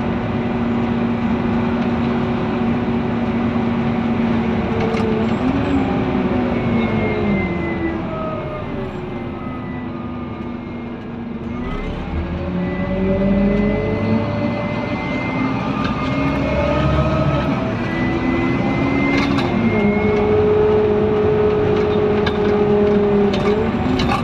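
Scania N230UD Omnidekka double-decker bus heard from inside the passenger saloon: its 9.3-litre five-cylinder diesel engine pulls and changes gear, the pitch climbing and dropping several times. It eases off around the middle and then pulls away again, with a few knocks from the body.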